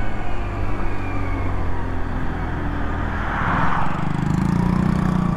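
Lexmoto Echo 50cc moped running at cruising speed, a steady engine drone with wind rush on the microphone. A brief rush of noise comes about three and a half seconds in, and the engine sound grows louder from about four seconds in.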